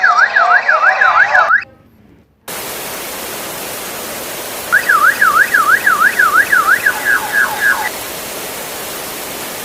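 A warbling alarm siren rises and falls about three to four times a second, then cuts off about one and a half seconds in. After a brief hush, a loud, steady rushing hiss begins and carries on. The siren warbles again over the hiss for about three seconds in the middle and breaks up into echoing fragments as it stops.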